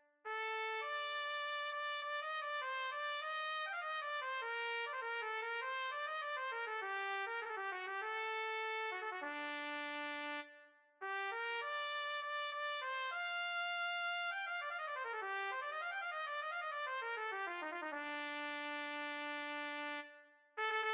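Unaccompanied trumpet solo playing quick runs and triplet figures between held notes. It breaks off briefly about halfway and again near the end.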